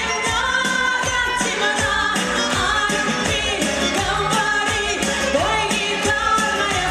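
Pop song: singing over music with a steady beat.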